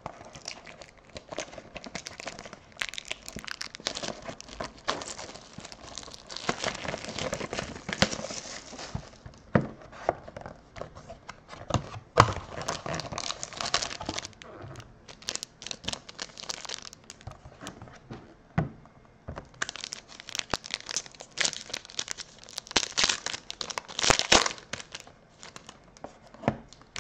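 Silver foil trading-card pack being handled and torn open, crinkling in several spells with short pauses and sharp crackles.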